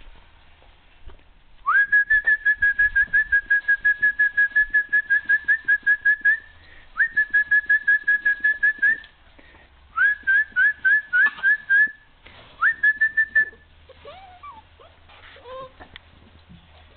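A high, steady-pitched whistle trilled rapidly, about seven pulses a second, in four runs: one long, two shorter and a brief last one. A few faint, gliding whimpers follow near the end, from the puppies.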